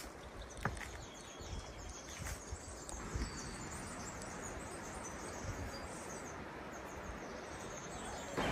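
Steady rush of flowing water from a river or waterfall, with a few faint bird chirps over it and a few light knocks or steps in the first couple of seconds.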